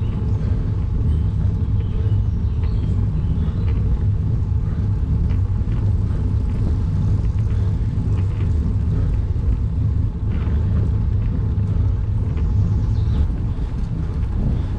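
Steady low rumble of wind buffeting and road vibration on a bike-mounted GoPro's microphone while riding a road bike on wet asphalt, with a few faint ticks.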